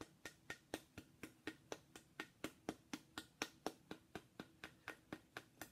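A small hammer tapping on a carved figurine in light, quick, even taps, about four a second, working through acupressure points.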